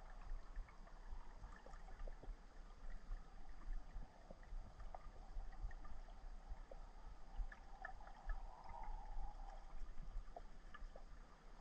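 Underwater ambience picked up through a camera housing in murky river water: a low rumble with many faint scattered clicks and ticks, and a soft hiss that swells for a couple of seconds past the middle.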